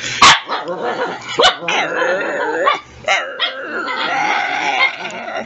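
Shih Tzu barking in play: a sharp, loud bark near the start and another about a second and a half in, followed by long wavering grumbling vocal sounds.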